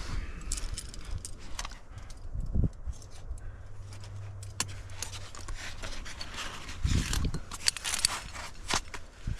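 Climbing hardware clinking and scraping against rock while a climber moves, with clothing rustle and many small clicks. Two dull knocks stand out, one a few seconds in and one about seven seconds in.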